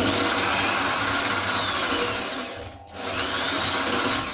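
Corded electric drill running as the bit bores into a wooden board, its motor whine sagging in pitch as the bit bites. Just before three seconds in, the motor winds down briefly, then spins back up before stopping at the end.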